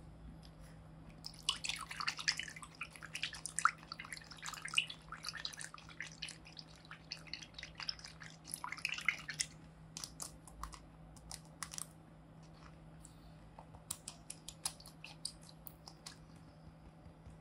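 Water in a small tape-lined paper pool sloshing and crackling with bubbles as fingers push a laminated paper cutout through it. A dense run of wet clicks and pops lasts for the first half, then thins to scattered drips and taps.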